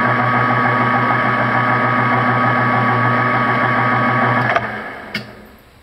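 Metal lathe running with its chuck spinning a rifle barrel, a steady motor-and-gear hum with a thin whine on top. About four and a half seconds in it is switched off with a click and winds down, and a single sharp knock follows.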